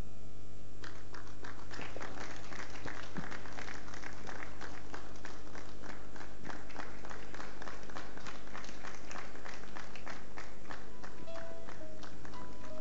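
Rhythmic hand-clapping, several claps a second, starts about a second in over a steady low hum. Near the end an instrument comes in with a few held notes as the music begins.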